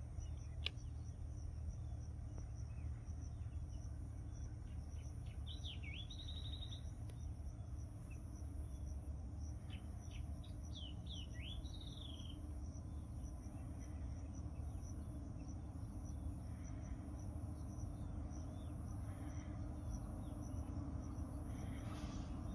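Outdoor ambience of insects trilling steadily, with a few short bird chirps in the middle, over a low steady rumble. A single click comes just under a second in.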